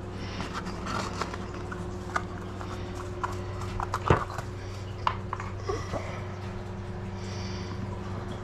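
Scattered clicks and knocks of small plastic powder-paint jars and tools being handled on a worktable, with one louder knock about four seconds in, over a steady electric hum.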